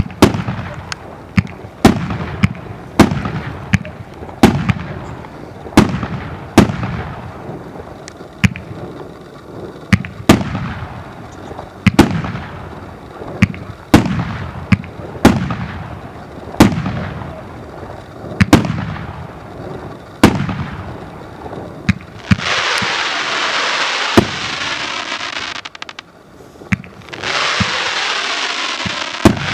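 Consumer firework cake firing shot after shot, a sharp bang roughly every second, each trailing off in a falling echo. About three-quarters of the way through, the bangs give way to a dense, continuous rush of noise that breaks off briefly once and then resumes.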